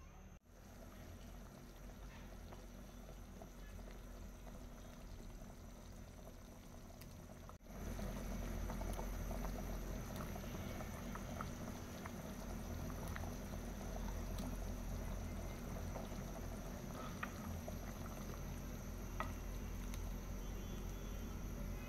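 Beef and potato curry bubbling at a simmer in a pot, a steady bubbling that is muffled under a glass lid at first and louder once uncovered, about seven and a half seconds in. A few light ticks near the end.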